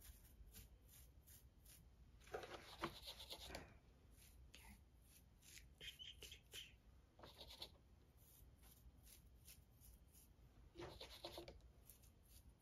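Faint scratchy rasps of a toothbrush's bristles being flicked with a thumb to spatter paint onto notebook paper. The rasps come in three short spells about four seconds apart, with soft ticks between them.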